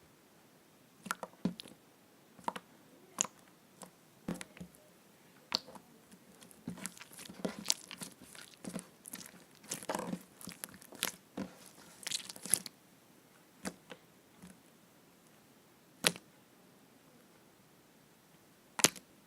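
Slime being squeezed and stretched by hand, making irregular sticky pops and crackles. They come thickest in the middle and then thin out to a few single pops near the end.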